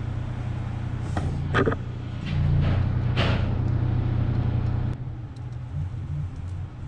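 Steady low engine hum that swells louder for a few seconds from about two seconds in, then eases back. Over it come a few sharp clicks and scrapes as hands and a screwdriver work at the compressor motor's wiring leads.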